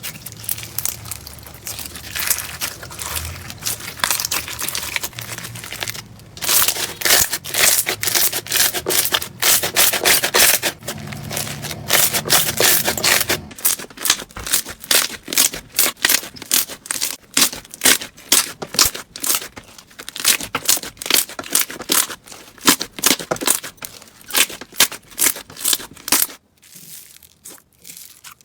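Slime being squeezed and worked by hand, with dense, fast crackling and popping. The crackle changes in character a few times: denser and louder from about six seconds in, sharper and more spaced from about thirteen seconds, and fainter near the end.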